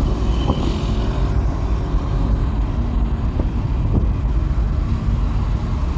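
Car driving along a road: a steady low rumble of engine and tyre noise, heard from inside the moving car.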